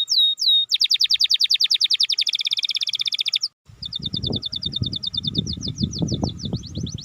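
Canary singing. A few slow, downward-sweeping whistled notes lead into a rapid trill. After a brief break at about three and a half seconds another fast trill follows, with an uneven low rumbling noise under it.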